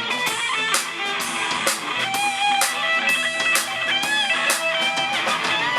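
Live rock band playing, led by an electric guitar bending notes over a steady drum-kit beat.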